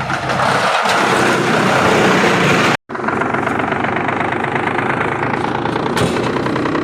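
Heavy-duty wood chipper machine running with a loud, steady mechanical din and a fine rattle. The sound drops out for a split second near the middle, then carries on the same.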